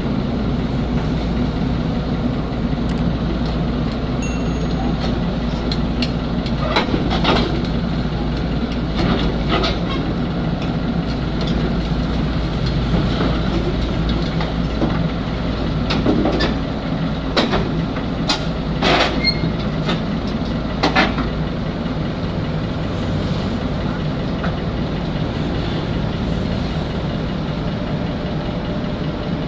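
Excavator's diesel engine running steadily, with sharp knocks now and then that come several in a row past the middle.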